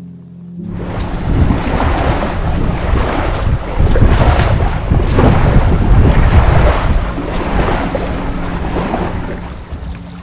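Gusty wind buffeting the microphone aboard a small sailing yacht under way, mixed with the rush of water, starting suddenly about half a second in and easing near the end.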